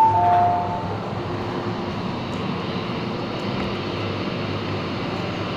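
Two-tone door chime of an MTR M-Train, a higher and a lower tone overlapping, for about the first second, then the steady hum and hiss of the train standing at an underground platform.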